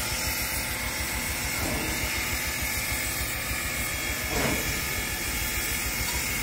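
A standing steam locomotive hissing steadily as it sits under steam, with a faint short knock about four and a half seconds in.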